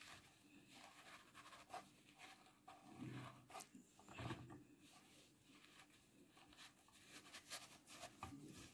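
Near silence, with faint rustling and small clicks of pleated cotton fabric being handled and pushed along the threads of a smocking pleater.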